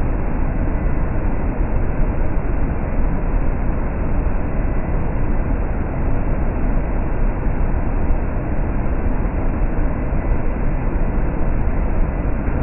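Cold-rolled steel strip line running: loud, steady machinery rumble of the moving sheet, rollers and drives, with a faint high steady whine over it.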